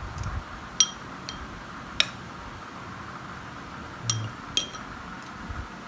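A spoon clinking against a bowl, about five light separate clinks with a brief ring, as food is stirred and spooned up.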